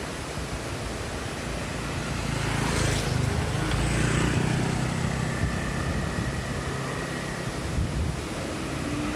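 Motorcycle engine running unevenly with a coughing, sputtering note, swelling louder a few seconds in, under a steady rushing noise.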